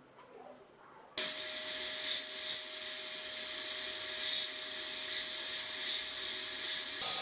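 Sandblast gun blasting rust off the steel jaw of a vintage adjustable spanner: a loud, steady hiss of air and abrasive that starts abruptly about a second in, with a faint steady tone beneath it. The hiss shifts in character just before the end.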